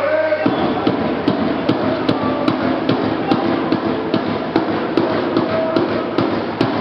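Rapid, irregular knocking and banging, several sharp knocks a second over a dense clatter, starting abruptly about half a second in.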